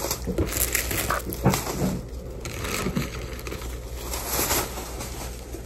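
Plastic bag rustling and crinkling, with light handling knocks, close to the microphone.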